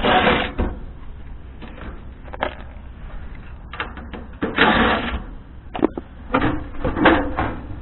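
Cordless DeWalt 20V impact driver hammering out sheet-metal panel screws in short bursts, one right away and another about four and a half seconds in, followed by a few clicks and knocks near the end.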